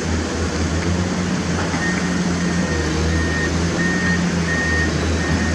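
Heavy construction machinery's diesel engine running with a steady low drone. From about two seconds in, a reversing alarm beeps about once every 0.7 seconds over it.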